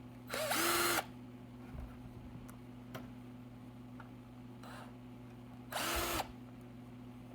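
Electric screw gun spinning in two short bursts, about half a second and six seconds in, its motor whine rising and then holding as it backs out the amplifier's case screws. A fainter burst comes between them, over a steady low electrical hum.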